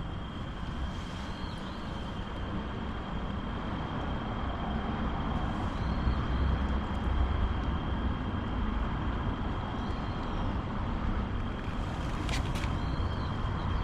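Steady outdoor background noise with a fluctuating low rumble and a thin, steady high tone, with a couple of faint clicks near the end.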